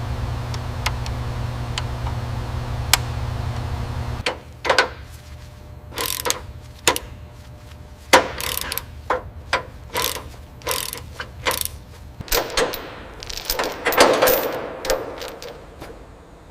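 A steady low machine hum cuts off about four seconds in. It is followed by a string of irregular sharp mechanical clicks and knocks, some in quick pairs and thickest near the end.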